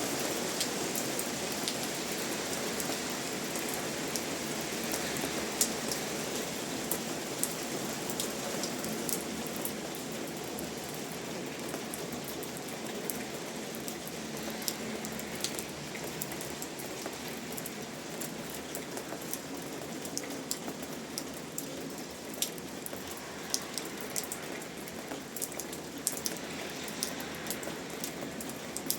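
Steady rain with many distinct drops tapping on a surface over a constant hiss.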